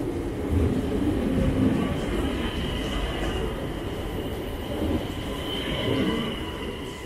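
DSB IC3-family intercity train pulling out along the platform: a low wheel rumble, with a thin high-pitched wheel squeal from about two seconds in until about six seconds. It fades toward the end as the last car moves away.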